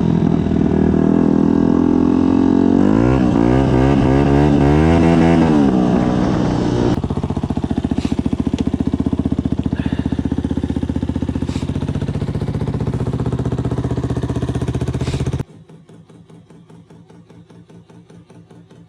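Yamaha WR125's single-cylinder four-stroke engine through a Black Widow aftermarket exhaust, revving up and down, then after a cut running steadily. About fifteen seconds in it cuts off suddenly, leaving only a faint rhythmic sound.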